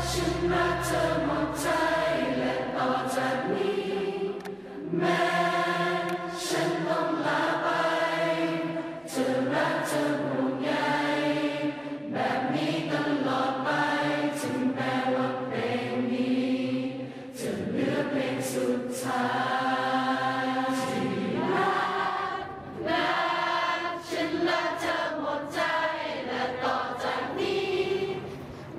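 Music: a song with a group of voices singing together in long, held phrases, with short breaks between lines.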